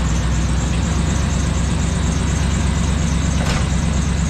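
One-ton Chevy van engine idling steadily, with one short click about three and a half seconds in.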